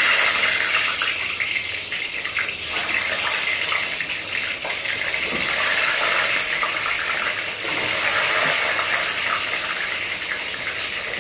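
Peeled boiled eggs frying in hot oil in a karahi, a loud steady sizzle.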